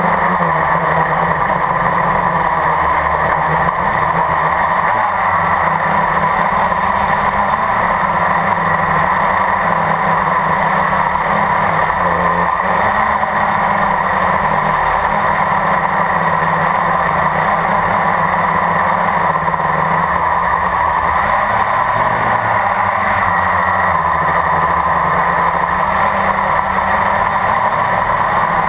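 Blade 350 QX quadcopter's electric motors and propellers running in flight, heard from its onboard camera: a steady drone with a lower hum that shifts up and down in pitch.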